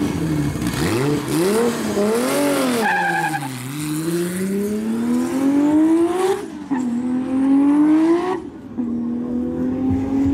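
Heavily tuned, roughly 1400 hp Toyota Supra Mk4's 2JZ straight-six revving up and down at the start line, then launching and accelerating hard. The pitch climbs through the gears, with upshifts about six and a half and eight and a half seconds in.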